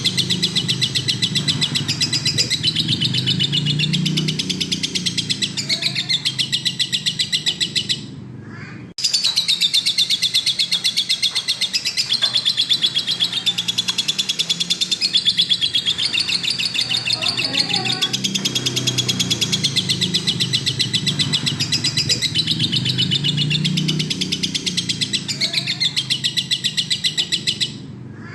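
Lovebird singing nonstop: a long, rapid chattering trill of high, fast-repeated notes, breaking off briefly about eight seconds in and again near the end.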